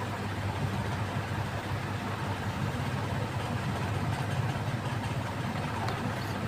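A steady low rumble of background noise, unchanged throughout.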